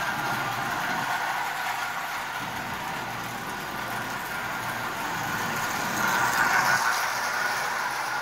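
Marx 999 toy train locomotive and its tin litho cars running around a loop of old Marx tinplate track, a steady mechanical running sound that gets a little louder about six seconds in.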